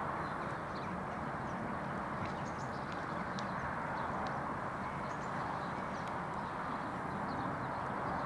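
Level crossing warning bell ringing steadily and rapidly while the barriers are down and the lights flash, with faint bird chirps above it.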